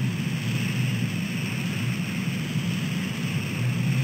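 Steady low rumble and hiss of rain and road traffic on an outdoor nest-camera microphone, with no distinct events.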